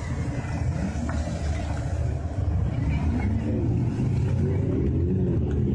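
Jeep Wrangler engine running under load as it drives in a deep mud pit, a steady low rumble.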